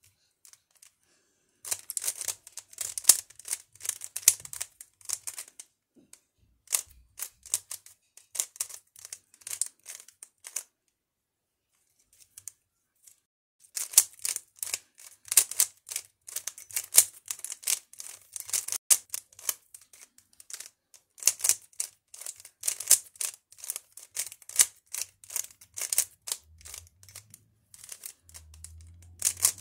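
Plastic 3x3 Rubik's cube with circle-printed faces being turned fast by hand: a rapid clatter of layers clicking and snapping into place. It stops for about three seconds in the middle, then carries on.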